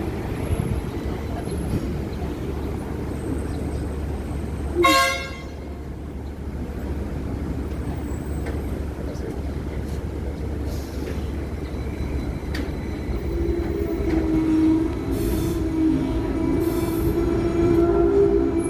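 Hong Kong double-decker electric tram running on its rails with a steady low rumble. About five seconds in, a single short, bright ringing tone sounds. From about two-thirds of the way through, the steel wheels squeal on the rails, growing louder toward the end.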